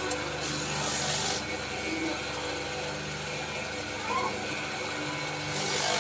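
Spindle sander running with a steady hum while a Turkish horse bow's limb is pressed against its sanding drum, giving a rasping hiss in two passes: one about half a second in, lasting about a second, and another starting near the end.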